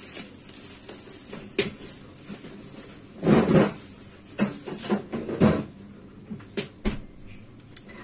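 Kitchen handling sounds: scattered clicks and knocks of dishes and cookware, with two louder rustling, clattering bursts about three and five seconds in.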